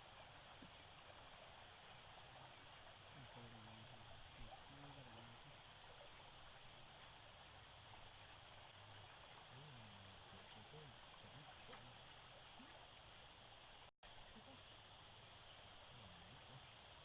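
Steady high-pitched drone of insects, with faint low voices in the distance. The sound cuts out for an instant about fourteen seconds in.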